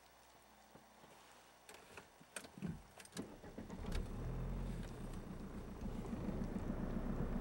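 A few sharp clicks and rattles, then a vehicle engine starts about three seconds in and settles into steady running.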